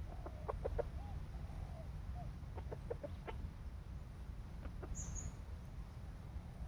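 Chicken clucking: soft low clucks with two clusters of short, sharp notes, one about half a second in and the other around three seconds in, over a steady low rumble. A brief high chirp from a small bird or insect comes about five seconds in.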